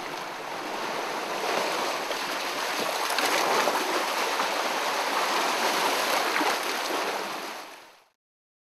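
Ocean surf rushing and churning over rocks, a steady washing noise that fades out near the end.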